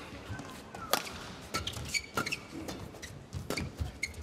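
Badminton rally: sharp racket-on-shuttlecock hits every half-second to second, with brief squeaks of shoes on the court between them.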